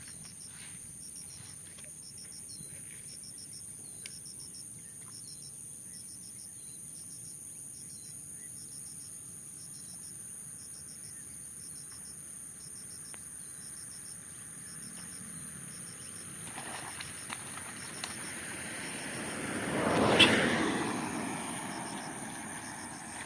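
A steady high insect drone with short chirps repeating about twice a second. Near the end a vehicle passes close by, swelling to its loudest with a sharp click at the peak and then fading.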